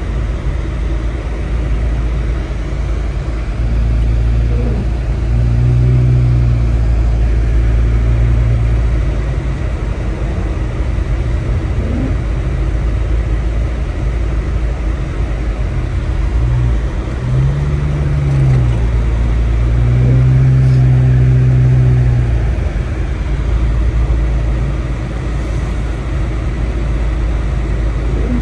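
Steady low engine and road rumble heard inside a moving car on a snow-covered road. A deeper engine tone swells twice, as the car pulls ahead, around five and twenty seconds in.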